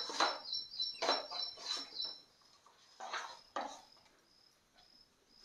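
A cardboard mobile phone box being slid open and handled: several short rustling scrapes over the first four seconds. Through the first two seconds a bird chirps rapidly in high, quick two-note calls.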